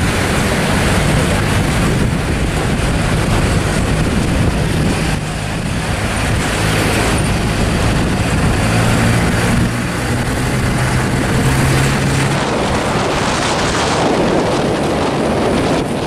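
Moving pickup truck heard from its open bed: a steady low engine hum under loud wind noise on the microphone. The engine hum drops away about twelve seconds in while the wind noise carries on.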